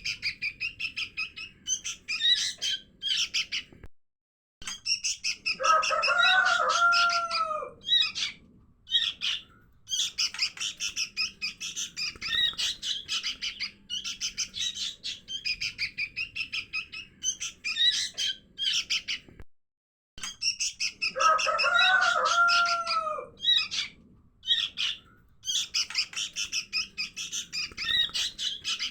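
Young sooty-headed bulbuls (kutilang) calling in rapid, continuous high chirps, a lure recording that repeats about every 15 seconds with short dead gaps between loops. A lower, curving call comes in twice, about six seconds in and again past twenty seconds.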